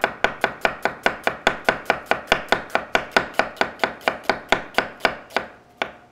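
Chef's knife thinly slicing a red onion on a wooden cutting board: a quick, even run of knocks, about five a second, as the blade meets the board with each slice. The run stops shortly before the end, followed by a single last knock.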